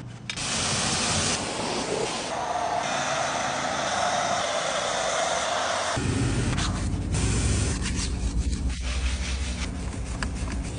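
Car-washing spray hissing for about the first six seconds, then a lower rumble with brushes scrubbing and rubbing against the car.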